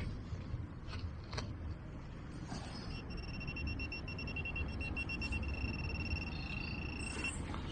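Handheld metal detecting pinpointer sounding its target alert: a steady, rapidly pulsing high-pitched buzz that starts about three seconds in and holds for about four seconds, signalling metal close to the probe tip. Low wind rumble on the microphone throughout, with a couple of short scrapes or knocks near the start.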